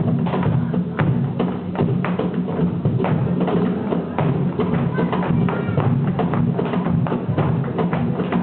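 Live flamenco music: fast, sharp percussive taps, many to the second, over a steady low accompaniment.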